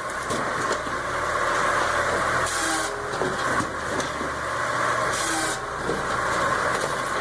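Firewood processing machine running: a steady engine and hydraulic drone, with two short hisses about two and a half and five seconds in.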